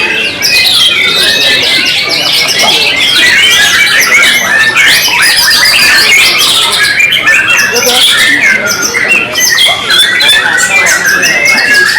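Several white-rumped shamas (murai batu) singing at once in a contest line-up: a dense, loud, unbroken tangle of overlapping whistled phrases and harsh chattering calls.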